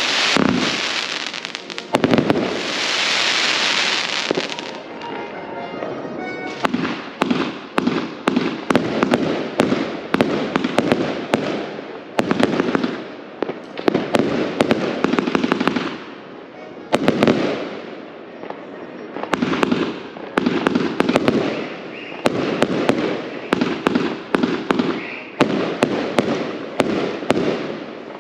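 Consumer firework batteries firing: clusters of sharp bangs and shots, one after another, with a long hissing crackle about two to four seconds in.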